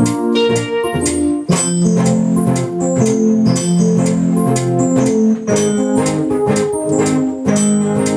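Electronic keyboard played with an organ-like sound, holding chords over a steady percussive beat; the chords change about a second and a half in.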